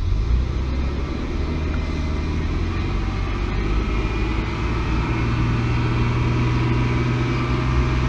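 1999 Ford Explorer's 4.0L SOHC V6 engine revved up from idle at the start, then held at a steady fast speed of about 2,000 to 2,400 rpm. The engine has a vacuum leak, which the owner diagnoses from this rev test: the fuel trims improve at raised rpm.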